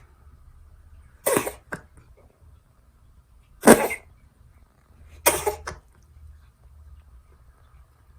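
A cat coughing and sneezing: three short, sharp bursts about two seconds apart, the middle one the loudest.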